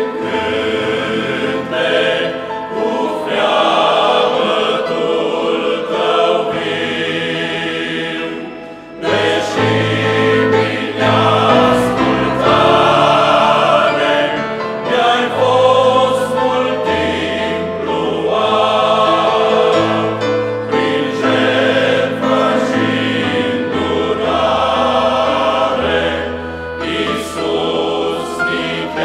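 Men's choir singing a Christian hymn in parts, accompanied by a digital piano, with low bass notes held under the harmonies. The singing drops away briefly about eight seconds in, then comes back in full.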